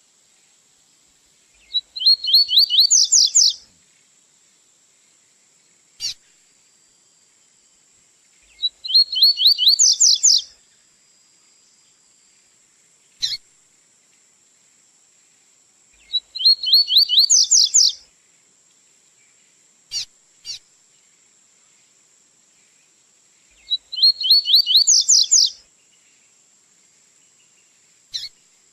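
Double-collared seedeater (coleiro) singing its tui-tui song type: four fast phrases of rapidly repeated high notes that rise toward the end, each about two seconds long and roughly seven seconds apart, with short single chirps in between.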